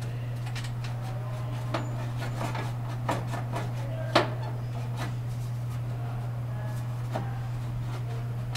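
A few light knocks and clicks as objects are handled and bumped, the sharpest about four seconds in, over a steady low hum.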